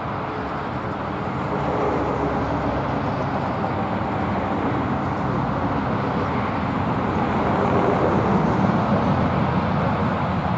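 Steady road traffic noise from passing vehicles, swelling slightly a couple of times as cars go by.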